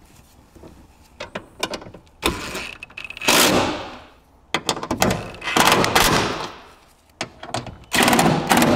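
Cordless power driver running in three bursts of one to two seconds each, driving in the bolts of a battery hold-down bar. A few light clicks come before the first burst.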